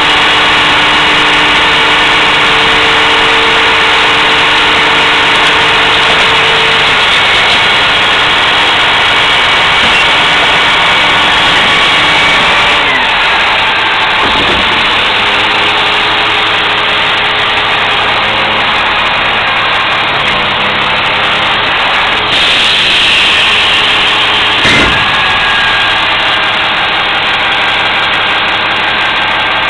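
Labrie Minimax garbage truck's engine running steadily, its pitch dropping about 13 seconds in, with two sharp knocks, one near the middle and one near the end.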